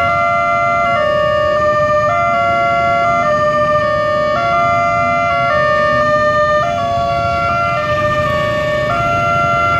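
Railway level-crossing electronic alarm sounding a steady two-tone warning that switches between two pitches roughly once a second, the signal that the barriers are down for an approaching train. Idling traffic runs faintly underneath.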